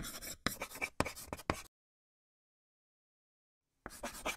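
Felt-tip marker writing on a board: a quick run of short scratchy strokes, a pause of about two seconds, then a few more strokes near the end.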